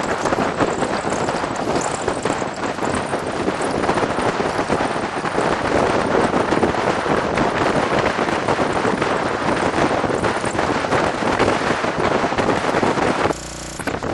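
Car driving over a rough dirt track, with wind buffeting the microphone: a loud, steady rushing noise full of rattles from the bumpy road. It drops briefly near the end.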